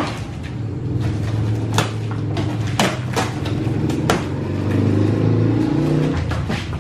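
A motor vehicle's engine running close by, growing louder through the middle and easing off near the end. A few sharp clicks and snaps come from cardboard packing being cut and handled.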